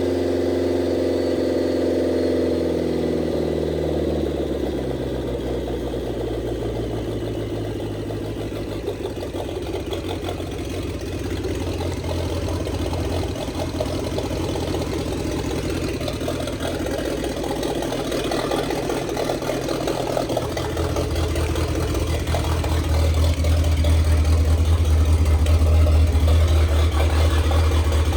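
Turbocharged 2.3-litre four-cylinder engine of a Ford roadster running just after being started following a fuel-line repair. Its revs fall over the first few seconds, then it idles steadily, with the low rumble growing louder from about twenty seconds in.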